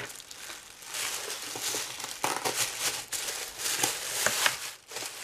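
Thin plastic carrier bag crinkling and rustling in irregular bursts as hands untie it and pull it open.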